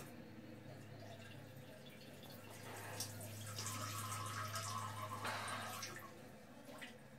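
Water running and splashing in a small bathroom for about three seconds, over a steady low hum.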